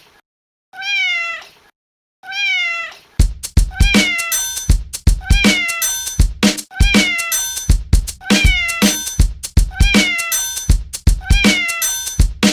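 A recorded cat meow sounds twice, about a second and a half apart. Then, about three seconds in, a looped electronic beat with a heavy kick drum starts, with the meow sample repeated in rhythm over it as part of the track.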